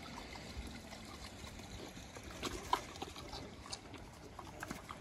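Pigs moving and rooting about in a dirt pen: faint scattered scuffs and small clicks, with one sharper click about three seconds in.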